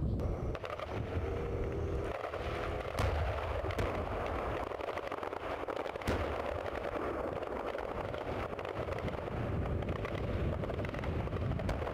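Gunfire and blasts from a military field exercise: a few sharp reports, the loudest about three seconds in, another near six seconds and one near the end, over a constant rushing noise.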